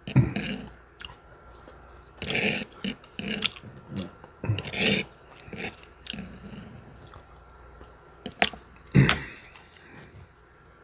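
A person chewing food, with irregular short bites and mouth clicks; the loudest comes about nine seconds in.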